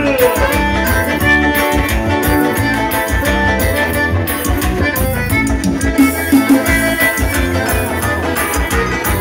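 Live forró band playing an instrumental passage over a steady drum beat, with accordion, electric guitar and keyboard.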